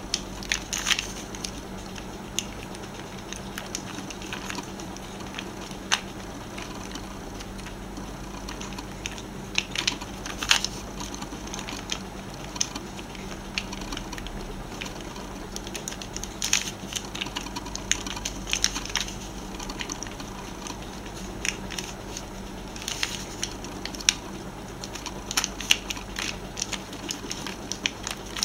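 Plastic Pyraminx pyramid puzzle being twisted by hand. Its tips and layers turn with irregular clicks and clacks, some single and some in quick clusters of a few.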